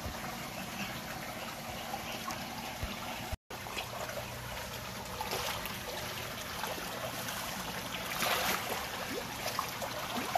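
Water trickling and splashing in a tank crowded with red tilapia, a steady running-water sound with a few brief louder splashes, the strongest about eight seconds in.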